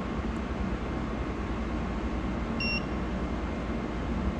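One short continuity beep from a clamp meter's test probes, about two and a half seconds in, over a steady background hiss.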